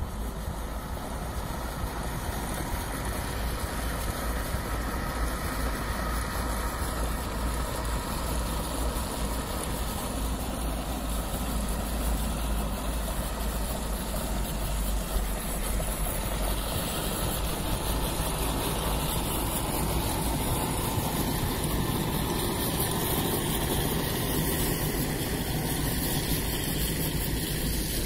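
Compost-turning machine running steadily as it turns a windrow of mushroom compost.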